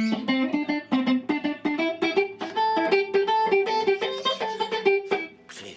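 Electric guitar played with chicken picking, the pick and the middle finger alternating, giving a quick run of short, percussive plucked notes. The run stops about five seconds in.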